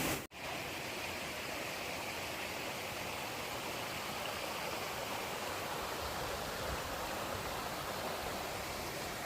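Steady rush of a small, flat river flowing, the water above a waterfall, after a brief cut-out just at the start.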